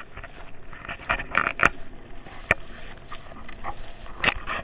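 Footsteps crunching and rustling through dry grass and brush, with a few sharp crackles of stalks underfoot.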